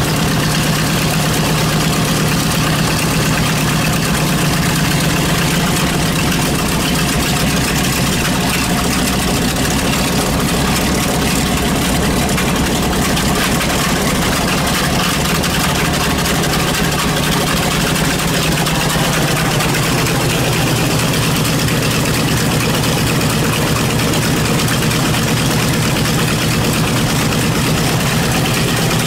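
B-25 Mitchell bomber's Wright R-2600 radial engine idling steadily during its warm-up, its note shifting slightly about two-thirds of the way through.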